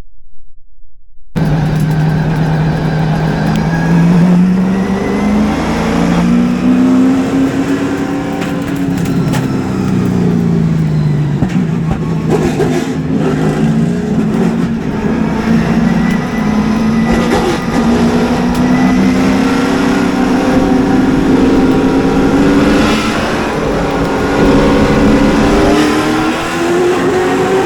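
Super late model race car's V8 engine at racing speed, heard from inside the car. It cuts in abruptly just over a second in, and its pitch sags and rises as the throttle comes off and back on through the turns, climbing steadily through the second half.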